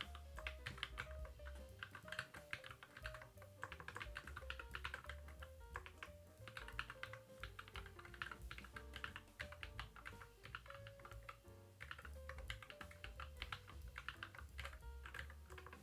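Fast typing on a Keychron Q11 split mechanical keyboard fitted with Cherry-profile double-shot PBT keycaps: a steady stream of keystroke clacks in quick runs with brief pauses. Soft background music with a simple stepping melody plays under it.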